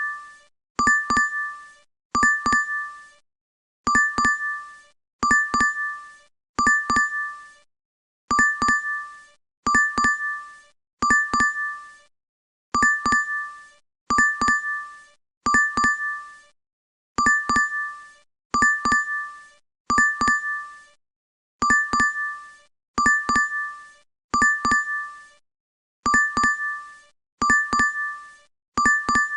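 DoorDash app notification chime repeating in a loop: a bright two-note double ding, heard three times in quick succession, then a short pause before the next group.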